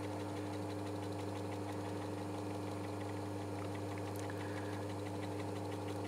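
Small metal lathe running free between cuts: a steady motor hum with a faint, regular ticking from the spinning drive.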